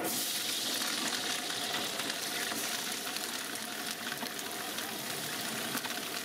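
Sliced green chillies dropped into hot oil in a large aluminium pot, setting off a sudden sizzle that carries on as a steady crackling hiss of frying.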